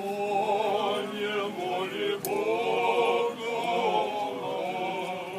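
Voices singing an Orthodox liturgical chant in long, held notes.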